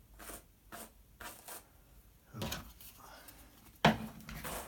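Hand carders brushing raw Donegal wool in short scratchy strokes, about two a second, straightening out the fibre to make it easier to spin. Louder knocks come later on.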